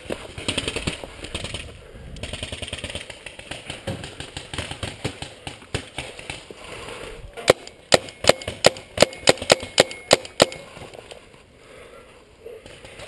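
A paintball marker firing a rapid string of about a dozen sharp shots, roughly four a second, beginning a little past halfway. Before the shots there is rustling and scraping of movement in dry leaves and brush.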